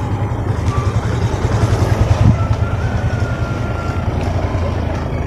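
Motorbike and small pickup truck engines running close by, a steady low rumble.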